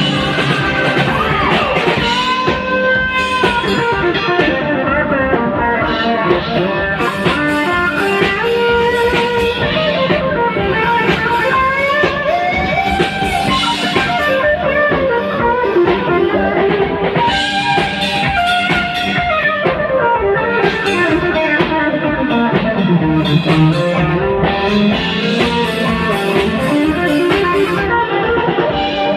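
Rock/blues-style music led by an electric guitar playing a melodic lead line, its notes bending and gliding, over a steady low backing.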